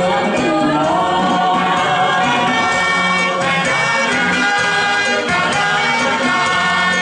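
A song: voices singing into microphones over amplified backing music, with a steady, even loudness throughout.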